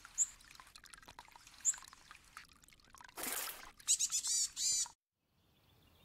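Stream water trickling over rocks into a small pool, with a splash just after three seconds and a quick run of high, sliding bird calls around four seconds in. The audio cuts out shortly before the end.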